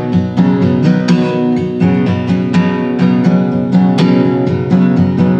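Acoustic guitar strummed in a steady rhythm, about two strokes a second, its chords ringing in an instrumental break between sung lines.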